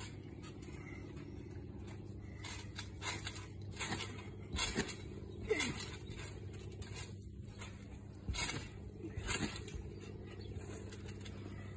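A child jumping and landing on a backyard trampoline: a handful of thumps on the mat at uneven intervals, over a steady low background hum.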